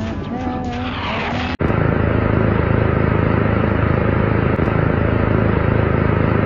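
Music with a wavering melody cuts off abruptly about one and a half seconds in, replaced by a loud, steady hiss of TV static with a low hum under it.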